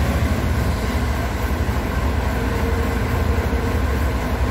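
Steady low engine rumble on a car ferry, heard from inside a car.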